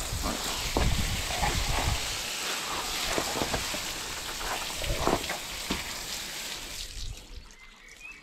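Hose water spraying onto a horse's tail and the wet brick paving: a steady hiss with spattering splashes, which dies away about seven seconds in.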